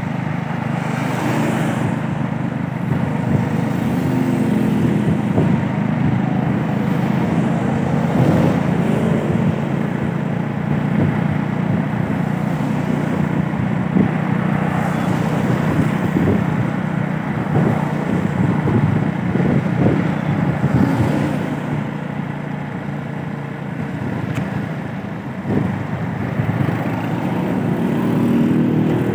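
Motorcycle engine running steadily at road speed, with wind rushing past and tyres hissing on the wet road.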